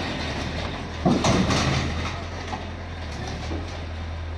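SANY SY75 mini excavator's diesel engine running steadily, with a few sharp knocks about a second in.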